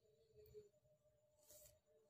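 Near silence: room tone with two faint, brief soft noises.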